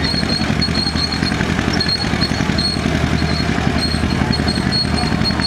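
1945 John Deere BO Lindeman crawler's two-cylinder gasoline engine idling steadily.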